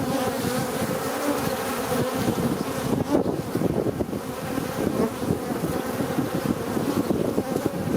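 Honeybees swarming around a hive entrance: a dense, steady buzz of many overlapping wingbeats. Many of the bees are larger ones that the beekeeper takes for drones.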